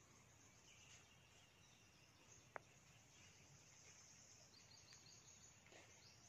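Near silence: faint background ambience with a single sharp click about two and a half seconds in.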